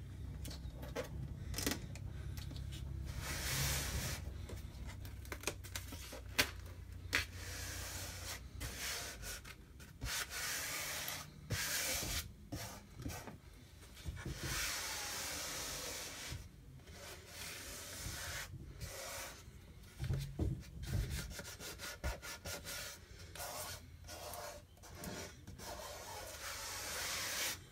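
Hands rubbing and smoothing an adhesive silk-screen transfer down onto a glass pane to press out air bubbles, in irregular strokes with short pauses between them.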